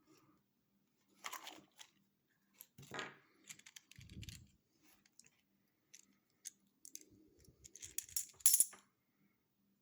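Canadian 80% silver half dollars clinking against each other as they are handled and tipped out, with a soft thump about four seconds in. The densest, loudest run of clinks comes near the end.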